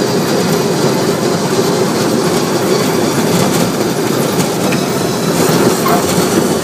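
Ride car running fast along its rails: a steady rumble and clatter of wheels on track.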